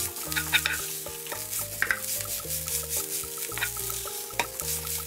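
Cooked rice and chopped green onions sizzling in hot oil in a nonstick frying pan while a wooden spatula stirs and scrapes them around, with repeated short scrapes and taps against the pan.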